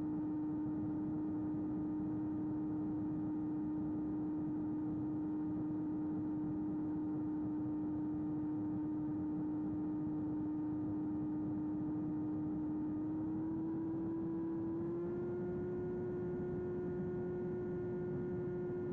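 Small RC flying wing's electric motor and propeller running with a steady whine over a rushing noise; the pitch steps up twice near the end as throttle is added for a climb.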